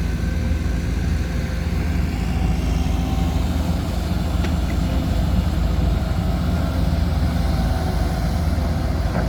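Heavy diesel engine of an excavator loading a dump truck, running steadily with a constant low hum.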